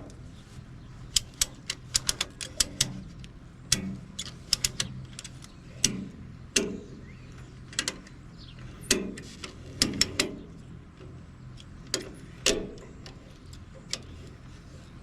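Ratchet strap being worked and tightened down over a load on a trailer: irregular sharp metallic clicks and clanks, some in quick clusters, over a low steady hum.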